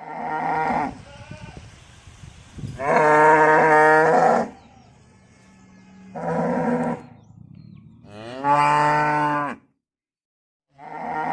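Cow mooing: four moos, the second the longest and loudest.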